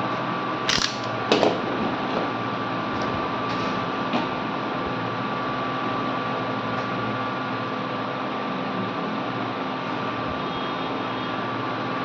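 Hot air rework gun blowing with a steady whirring hiss, heating the gum coating on a circuit board. A couple of sharp knocks in the first second and a half.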